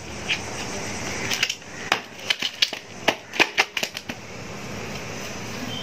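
Hands patting and pressing loose, spongy potting mix of coco peat, compost and ash down in a plastic pot, with a quick run of sharp clicks and crackles through the middle of the stretch.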